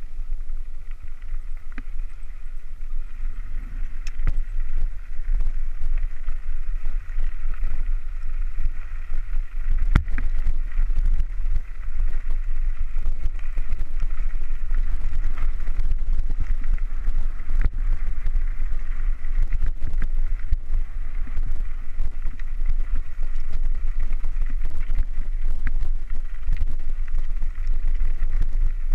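Mountain bike riding down a rough gravel dirt track, with heavy wind rumble on the microphone, tyre noise and frequent rattles and knocks from the bumps, a sharp knock about ten seconds in.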